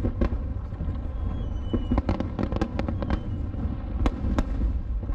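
Aerial fireworks shells bursting in a rapid, irregular string of bangs and crackles over a steady low rumble. A couple of faint high whistles sound about a second and a half in.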